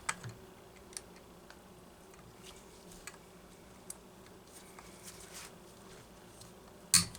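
Light clicks and ticks of small tools and metal engine parts being handled while a chainsaw's connecting rod is unbolted, scattered through, with one sharper click just before the end over a faint steady hum.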